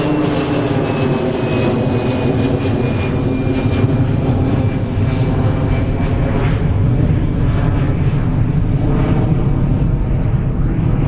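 Airbus A319's twin jet engines at climb-out thrust just after takeoff, a loud steady rumble. A faint whine slides slowly down in pitch and the high end fades as the airliner recedes.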